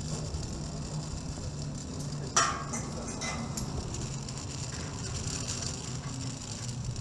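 Steady low rumble of wind on the microphone, with a single sharp knock about two and a half seconds in.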